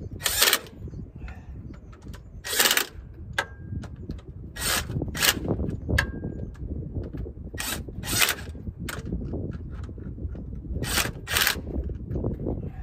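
About eight short scraping rubs, a few seconds apart and some in quick pairs, as a rubber oil line hose is worked by hand into place along a truck's frame, with a faint brief squeak twice, over a steady low rumble.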